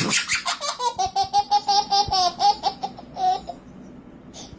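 Baby laughing: a quick run of high-pitched laugh pulses that tails off about three seconds in.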